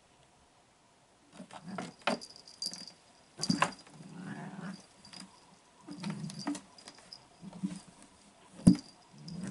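Cats playing on a cat tower: irregular scuffling and scratching of claws with scattered knocks, starting about a second in, the loudest a sharp thump near the end.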